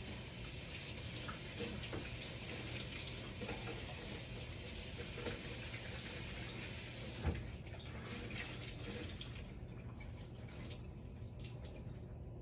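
Faucet running water into a sink while an Enviro cloth is rinsed under it, a steady rush that thins out over the last few seconds. A brief knock about seven seconds in.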